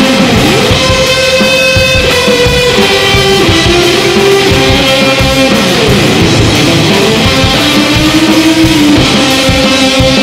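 Semi-hollow Telecaster-style electric guitar played along with a rock band recording that has drums. It holds long notes, and the pitch slides about half a second and again about six seconds in.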